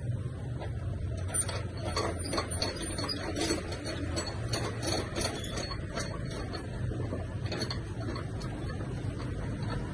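Scattered clicks and knocks of metal and wood as a Ryobi TS-381 miter saw's turntable is adjusted and a wooden workpiece is positioned for an angled cut, over a steady low hum.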